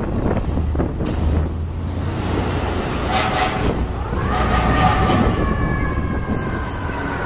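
Fire truck pulling away under emergency response: engine rumble, two short horn blasts about three and four and a half seconds in, then a siren that rises and slowly falls in pitch.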